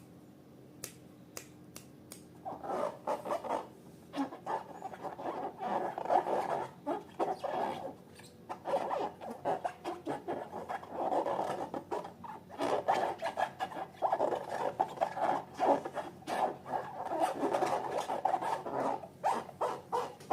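Slime being squished and worked by hand, with sticky crackling and small clicks and pops coming in bursts. A few separate sharp clicks come first, then the squishing runs almost continuously from about two and a half seconds in.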